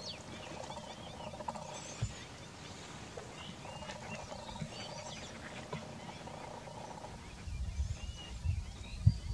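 Outdoor wildlife calls: many short, high chirps scattered over a lower, steadier chorus of calls. A low rumble comes in near the end.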